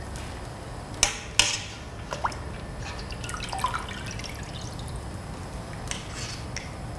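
Metal tongs clacking against a metal stockpot, sharply twice about a second in, then lighter clicks, dripping and splashing as chicken leg quarters are lifted and lowered into the hot soy-sauce liquid, over a low steady rumble.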